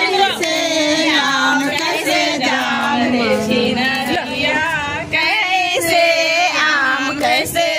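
Several women singing a traditional wedding song together, their voices wavering and overlapping.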